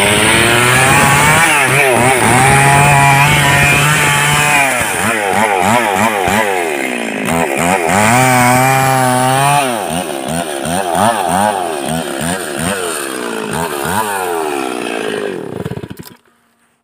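Stihl two-stroke chainsaw running at high revs while cutting into a large log. Its pitch holds steady for stretches, then repeatedly dips and recovers as the chain bites and the throttle is worked. The sound cuts off abruptly near the end.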